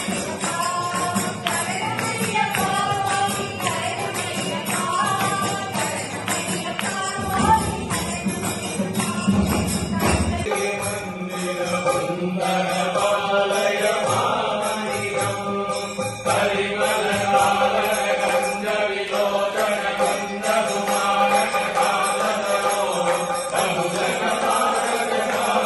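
Group of devotees chanting an Ayyappan bhajan together, with a steady percussion beat behind the voices. The beat changes about ten seconds in, and the chanting carries on.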